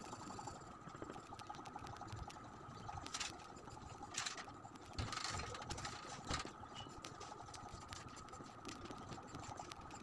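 Doms coloured pencil scratching on drawing paper in short strokes, with a few louder scratchy strokes in the middle, over a faint steady high hum.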